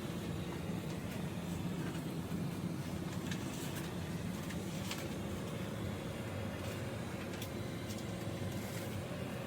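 Small fan of an Amazon Basics mini ceramic space heater running with a steady whir and a faint hum, with a few light clicks.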